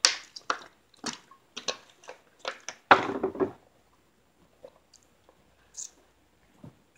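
Drinking from a clear plastic water bottle: a string of short crackling, gulping sounds about every half second, the loudest about three seconds in, stopping after about three and a half seconds, with a few faint clicks after.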